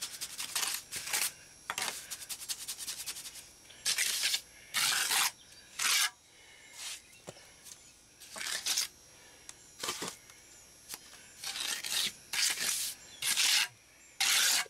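Hand trowel scraping and smoothing fresh cement patch mix against a concrete porch edge, in a series of irregular scraping strokes, some quick and some about half a second long.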